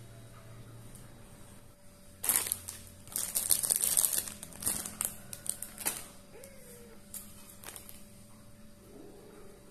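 Clear plastic packaging crinkling as it is handled with gloved hands: a dense run of crackly rustling starting about two seconds in and lasting about four seconds, then a few scattered crackles.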